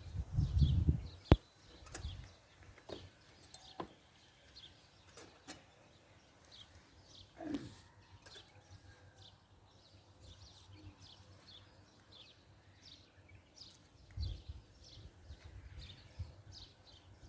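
Small birds chirping over and over, short high chirps that fall in pitch, several a second. Wind gusts rumble on the microphone at the start and again about 14 seconds in, with a sharp click just after a second in and one lower, falling animal call about halfway.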